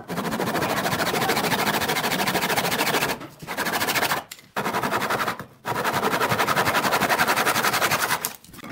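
Fine-toothed handsaw cutting a small wooden block, rasping in quick back-and-forth strokes. The sawing comes in four runs, with short pauses about three, four and five and a half seconds in.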